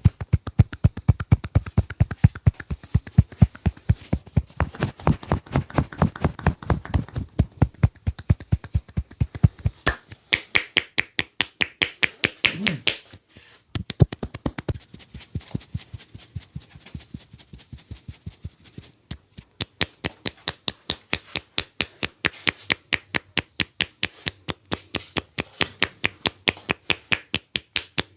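A barber's hands drumming out a percussive massage: rapid, evenly spaced slaps and taps at about four to five a second. The strokes pause briefly about halfway through, then take on a sharper, brighter tone.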